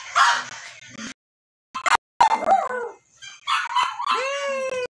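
Toy poodle puppy yipping and whining in short bursts, ending in a longer whine that rises then falls, as it is bathed in a plastic basin.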